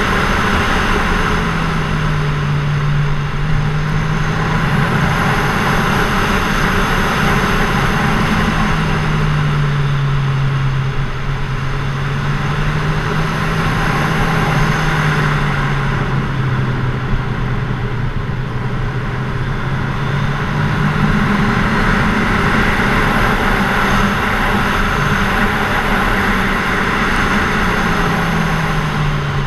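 Kawasaki Z1000SX's inline-four engine running under way on the road, its pitch sinking and climbing several times as the throttle is eased and opened through the bends, over a steady rush of wind and road noise.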